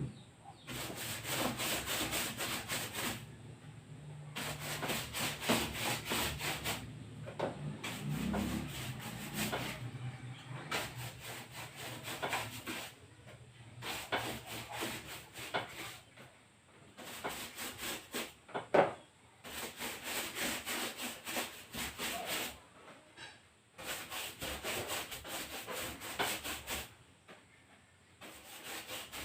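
A paintbrush scrubbing plastic varnish onto quarter-inch plywood: runs of quick back-and-forth rubbing strokes, each a few seconds long, with short breaks between them.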